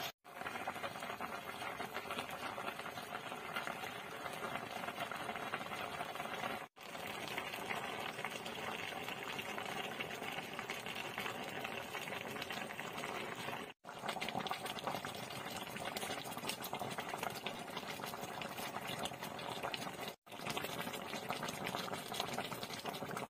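Chicken pieces, pork liver and tomato sauce simmering in a pan, a steady bubbling crackle, cut off briefly every six or seven seconds.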